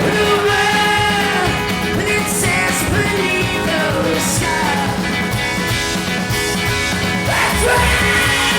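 Live rock band playing with a sung vocal line over a steady beat.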